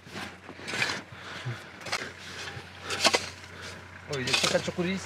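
A digging tool chopping into deep snow: several short, sharp strikes, the loudest about three seconds in.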